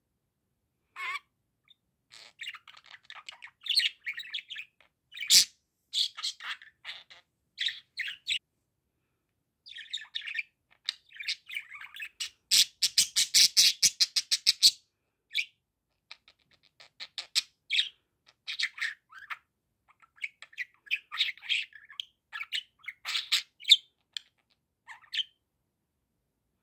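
Budgerigar warbling and chattering in a stream of quick chirps, clicks and squawks broken by short pauses, with a loud, rapid run of harsh chatter about halfway through.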